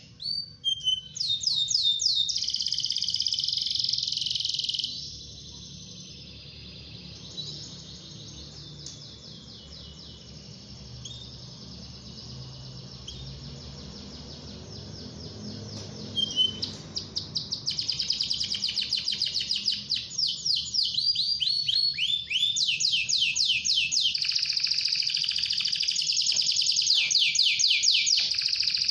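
Domestic canary singing a long song of fast trills and rolls. Loud at first, it drops to a softer stretch after about five seconds, then comes back with loud, rapid trills from about halfway on.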